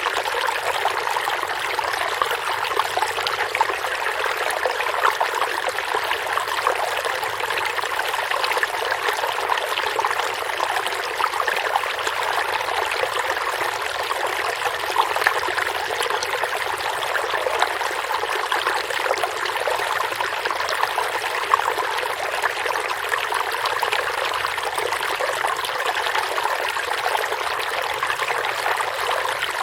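Forest stream running steadily over stones, a continuous splashing and trickling rush of water.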